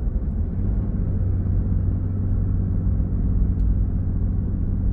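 Steady low rumble inside the cab of a Ford F-150 PowerBoost hybrid pickup driving up a hill, the truck's engine running with road noise underneath.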